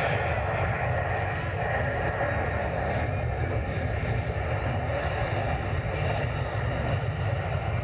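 Jet engine of a jet-powered school bus running at high power, a long flame from its tail pipe: a steady deep rumble with a hiss on top.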